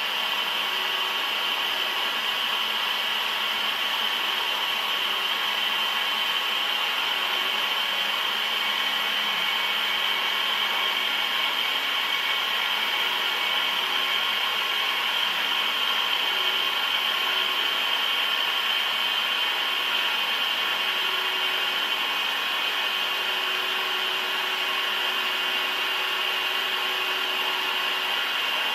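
Steady running noise of a large machine tool cutting metal, an even hiss with a high whine, with a faint lower tone that comes and goes.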